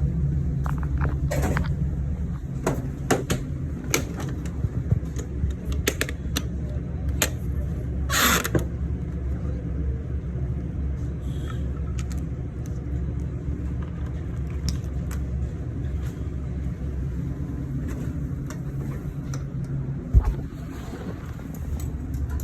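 Steady low machine hum, with many short clicks and knocks of equipment being handled. A brief scraping hiss comes about eight seconds in, and a single low thump near the end.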